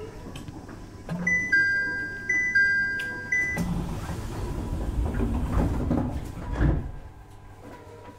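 Two-tone electronic chime ringing twice in a JR East 701 series commuter train car, a higher note then a lower one. It is followed by a few seconds of low rumble that ends in a thump, after which the car settles to a quieter hum.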